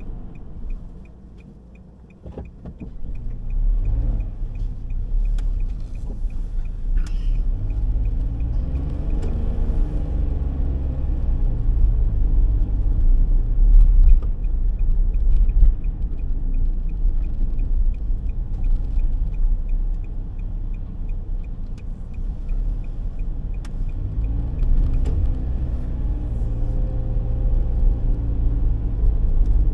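Car cabin sound while driving: a steady low rumble of engine and road noise, with the engine note rising as the car pulls away about a quarter of the way in and again near the end. A regular light ticking, like a turn-signal indicator, runs in the first part, stops, and comes back later.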